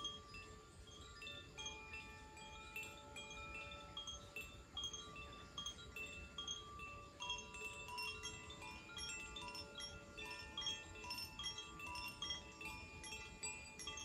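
Koshi chimes, bamboo-tube chimes with tuned metal rods inside, tinkling as they are gently swung by hand: a steady stream of light strikes, clear notes of several pitches ringing on and overlapping.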